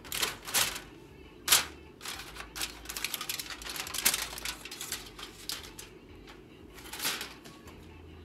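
Aluminum foil crinkling and crackling as it is peeled back off a baking pan: a run of sharp crackles, loudest about a second and a half in, thickest between two and five seconds, with one more near the end.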